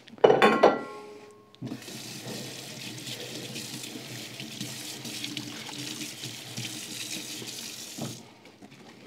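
Kitchen tap running into a sink for about six seconds, starting about a second and a half in and shutting off near the end, as utensils are rinsed after cutting raw chicken.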